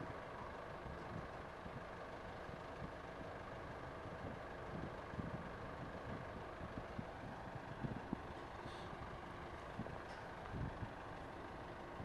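Faint, steady rumble of heavy equipment engines running on a construction site, with a few light knocks.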